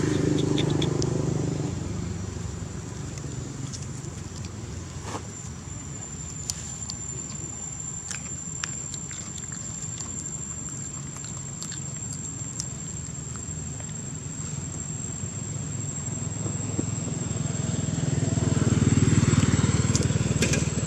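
Distant road traffic: a passing vehicle's engine rumble fades out over the first couple of seconds, and another swells up and fades away again near the end, over a steady high-pitched tone and a few faint clicks.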